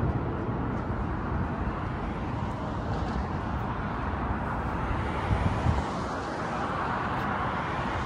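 Steady outdoor city street background noise, a traffic rumble, with a couple of brief low bumps a little past the middle.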